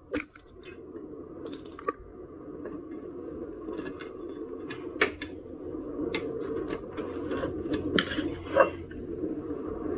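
Scattered clicks and clinks of hand tools and tyre levers being handled during an electric unicycle tyre change, a few sharper knocks among lighter scrapes, over a steady low hum.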